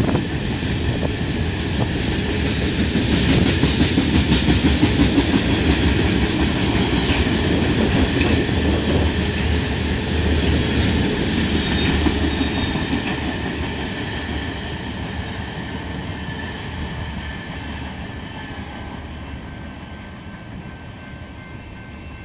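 Freight train tank cars rolling past, their steel wheels clicking over the rail joints in a steady clickety-clack. The sound fades steadily over the second half as the end of the train goes by.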